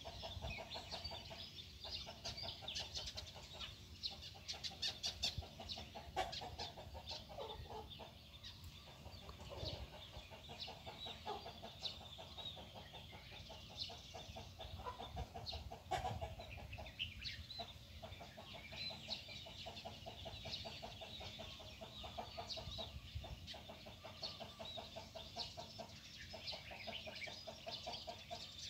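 Chickens clucking, a dense run of short repeated calls.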